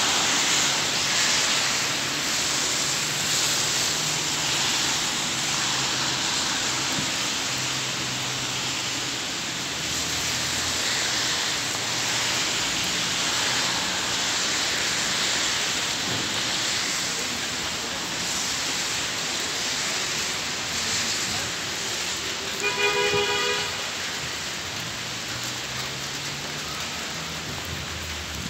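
Steady rain falling on a wet street, with the low hum of passing cars coming and going. Near the end a car horn gives one short toot.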